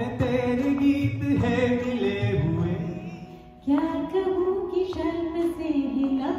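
Live violin and a woman's singing voice performing a slow Hindi film-song melody in long held notes. The music fades down a little past two seconds in and starts a new phrase sharply about three and a half seconds in.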